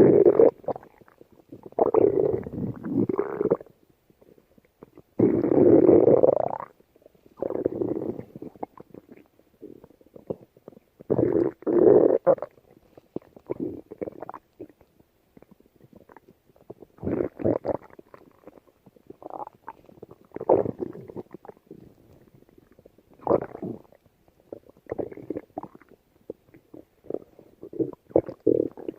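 Stomach growling and gurgling in irregular bouts: several long rumbles of a second or more, the loudest near the start and around the middle, with many short gurgles between them.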